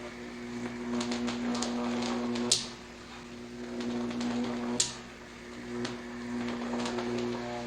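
Horror sound effect of a monster coming to life: a steady, pitched mechanical hum that swells and fades in cycles. It is broken twice, about two seconds apart, by a short, sharp high hiss.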